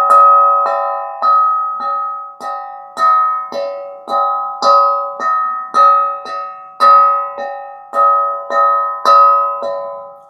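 Instrumental music: a ringing melodic instrument, plucked or struck, plays single notes at a little under two a second. Each note rings on and fades, and the last one dies away near the end.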